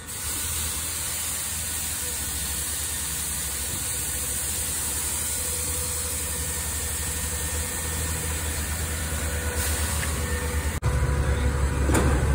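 Garbage truck engine running with a steady hum. A little before the end the sound breaks off and a louder, closer truck engine takes over, with a few knocks.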